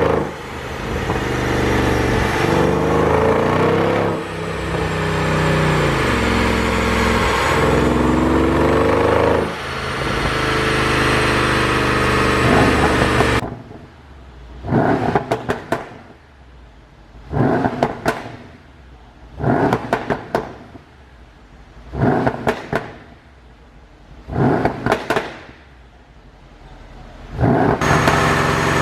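Mercedes CLS 63 AMG S twin-turbo V8 with a pop-and-crackle exhaust tune. For about the first 13 seconds it runs loudly with its pitch rising and falling. Then it gives about five short revs, each ending in a rapid burst of exhaust pops and crackles, before loud running resumes near the end.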